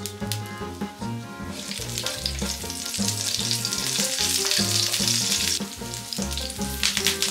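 Green chillies and cumin seeds sizzling in hot oil in a nonstick frying pan, over background music with a steady bass beat. The sizzle swells to a dense hiss about a second and a half in.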